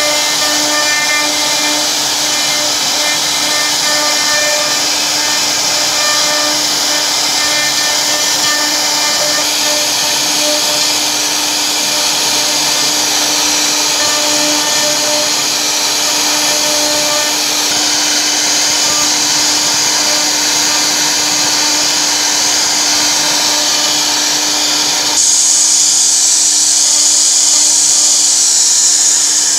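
CNC router spindle carving a relief pattern into wood: a steady motor whine and hum under the hiss of the bit cutting. About 25 seconds in the sound turns louder and brighter.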